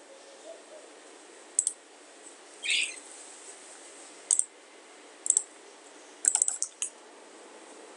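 Scattered computer clicks from a mouse or keys: single clicks about a second apart, then a quick run of several clicks about three quarters of the way through, over faint steady hiss.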